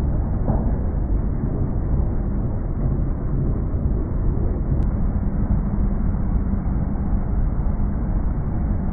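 John Deere combine harvester running steadily while cutting wheat, heard as a dull, muffled low rumble with no high end.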